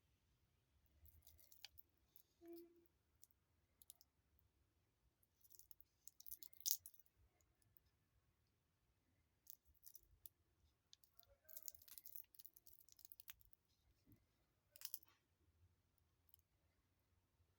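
Faint clicks and light handling noises in short clusters, with one sharper click about seven seconds in.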